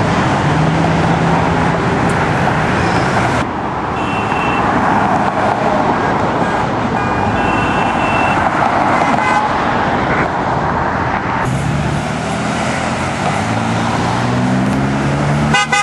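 Heavy road traffic passing close by: car and truck engines and tyre noise in a steady, loud wash, with engine hum swelling and fading as vehicles go past.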